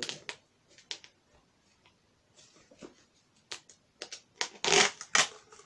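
Plastic food containers being handled and opened: a series of sharp plastic clicks and knocks, sparse at first and clustering into several loud clatters near the end.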